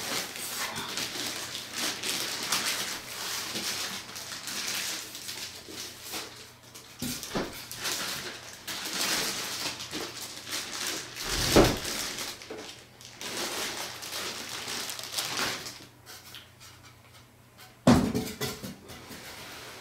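Plastic wrapping crinkling and styrofoam packing rubbing as a CyberPower UPS is pulled out of its packaging, broken by a few dull knocks. The loudest knocks come about halfway through and near the end, the last as the unit is set down on the carpet.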